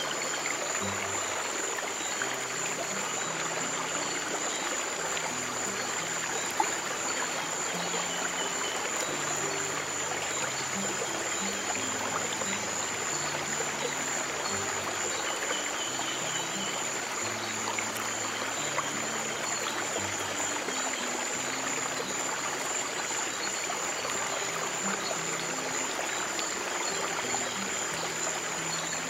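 A stream of water running steadily, over slow, low sustained music notes that change every second or two. A constant high-pitched tone sits above it all.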